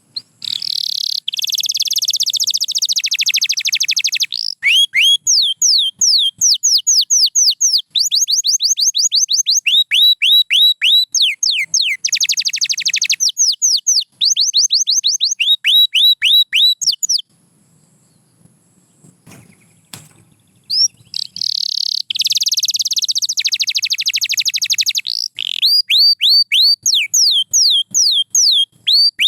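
Domestic canary singing: long phrases of fast buzzy trills alternating with rapid runs of repeated downward-sweeping whistled notes. The song breaks off for a few seconds a little past the middle, then starts again with the same pattern.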